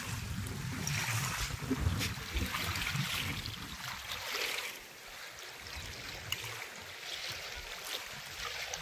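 Water splashing and sloshing around a hooked rohu as it is drawn in through the shallows to the angler's feet, with wind rumbling on the microphone.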